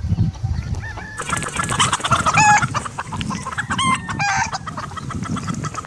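Pavlovskaya chickens clucking and cackling in a quick run of short, pitched calls, thickest and loudest in the middle, over a steady low rumbling noise.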